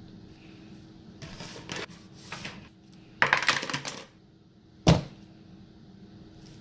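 A few short rustling, scraping noises, then a louder one lasting about a second, followed by a single sharp knock.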